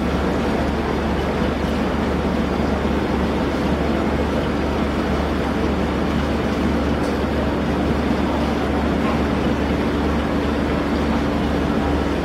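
Steady low drone of a small coastal oil tanker's diesel engine running, under a constant rushing hiss.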